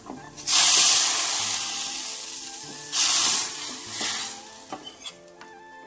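A pan of hot oil tempering (mustard seeds, garlic, dried red chillies and curry leaves) is poured into the liquid curry and sizzles loudly about half a second in, then fades. It sizzles up twice more, around three and four seconds in. Faint background music plays underneath.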